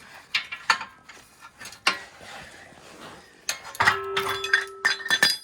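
Metal parts being handled, clanking and rattling: a few sharp clicks, then a busy run of clanks in the last two seconds, one of which rings on for about a second.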